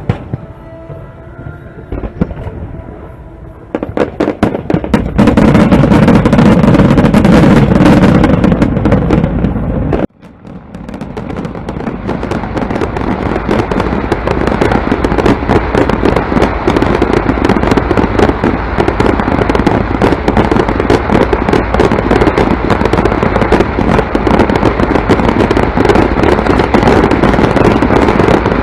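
Fireworks barrage: rapid, overlapping bangs and crackling that build up from about four seconds in. The sound cuts out abruptly around ten seconds in, then the barrage resumes and grows into a continuous, dense run of bursts.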